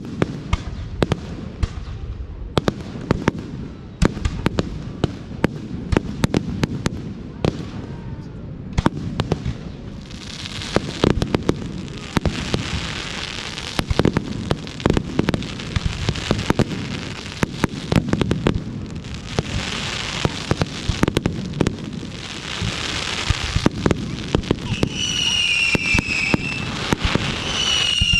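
Fireworks going off: a rapid string of bangs and pops, joined from about ten seconds in by a dense crackling hiss. Near the end come a few short, high whistles.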